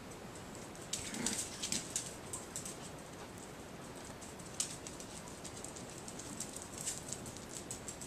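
Chihuahuas' claws clicking and pattering on a hard tiled floor as the dogs move about, in irregular clusters of quick taps, busiest about a second in and again near the end, with one sharp tap midway.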